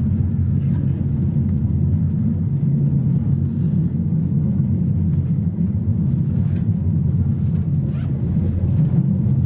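Rolling sound of an ICE 1 high-speed train heard inside a passenger coach: a steady, even low rumble of the wheels running on the rails, with a few faint ticks.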